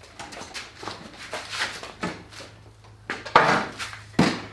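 Knocks and scrapes of a Honda HRX217 push mower being handled off plastic milk crates and set back down on its wheels on a concrete floor, with the loudest knocks in the last second and a half.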